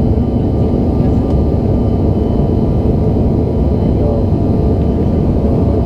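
Steady low roar inside the cabin of a Bombardier CRJ-900 airliner, from its rear-mounted GE CF34 turbofan engines and the airflow, with a few faint steady tones above the roar.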